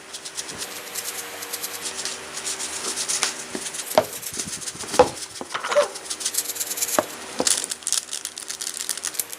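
Plastic crinkling and granules rattling, with scattered clicks and knocks, as seasoning is shaken into chicken; the sharpest knocks come about four, five and seven seconds in. A steady low hum runs underneath.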